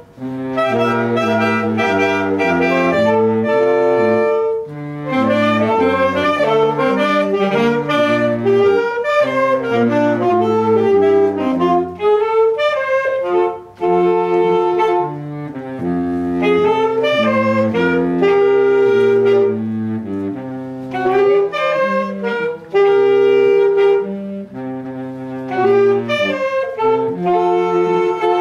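Saxophone quartet playing together in harmony, several saxophone parts moving at once over a low line beneath them, with a brief break about halfway through.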